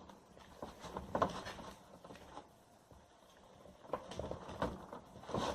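Faint, irregular clicks and soft squishes of slime being stirred in a container as the borax activator is added.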